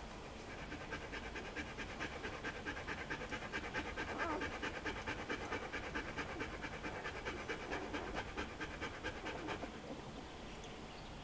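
Nursing mother dog panting quickly and rhythmically as her newborn puppies suckle. The panting starts about half a second in and stops near the end.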